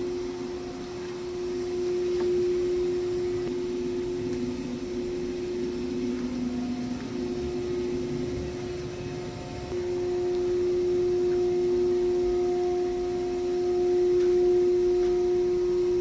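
Makino machining center running, giving a steady one-pitch hum that firms up with a higher overtone about ten seconds in.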